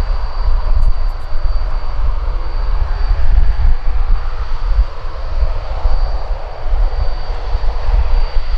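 Jet engines of a Ryanair Boeing 737 running as it moves along the runway: a continuous roar with a steady high whine above it and a fluctuating low rumble beneath.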